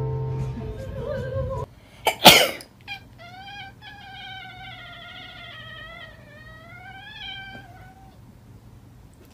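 A domestic cat's long, drawn-out yowl of about five seconds, wavering up and down in pitch, which comes after a short, loud burst of noise.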